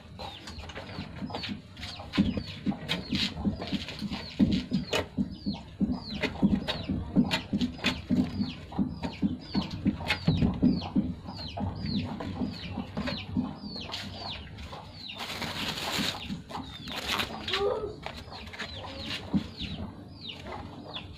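Chickens: chicks peep over and over in short, high, falling chirps, with a hen's low, regular clucking underneath. A short burst of rustling comes about fifteen seconds in.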